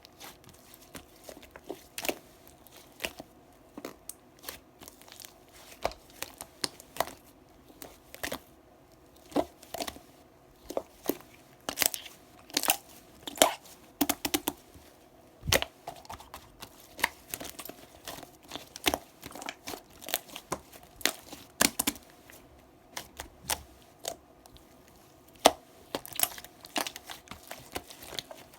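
Paper or plastic being handled close up: irregular crinkling and tearing with many sharp clicks and snaps, over a faint steady hum.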